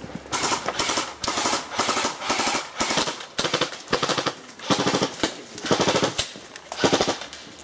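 Airsoft guns firing on full auto: a string of about ten short, rapid bursts of clicking shots with brief gaps between them.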